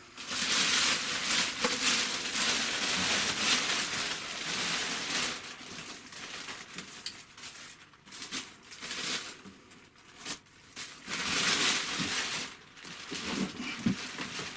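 Packing wrap rustling and crinkling as it is pulled off and crumpled by hand, in irregular bursts: busy for the first few seconds, sparser in the middle, busier again near the end.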